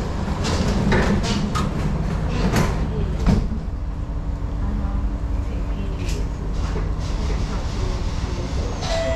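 Singapore MRT train doors sliding shut, with a run of knocks and a heavier thud about three seconds in, over the train's steady low rumble as it starts to pull away. Steady tones come in near the end.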